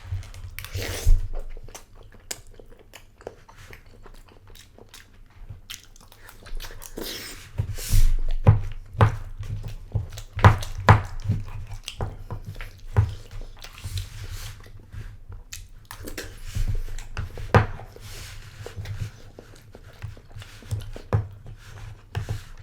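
Close-miked chewing and mouth sounds of someone eating a microwaved Salisbury steak in gravy, with irregular clicks and knocks throughout, busiest in the middle.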